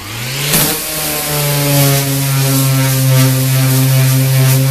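Skil electric dual-action (random orbital) sander switching on, its pitch rising for about a second as it comes up to speed, then running steady while it scuffs a sheet of 14-gauge steel.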